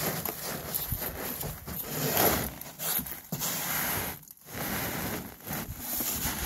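Gloved hand sweeping loose chunks of ice and frozen spray across an aluminum boat, an uneven run of crunching, scraping strokes with a short lull about four seconds in.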